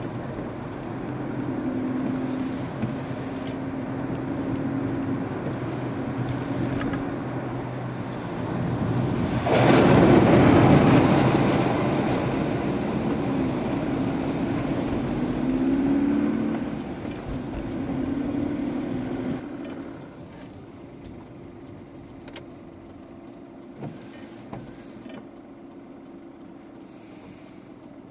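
Car driving on a wet road, heard from inside the cabin: the engine note rises and falls under a steady hiss of tyres on the wet surface. About ten seconds in a loud rush of noise swells for a couple of seconds, and about twenty seconds in the car slows and the sound drops to a quieter idle.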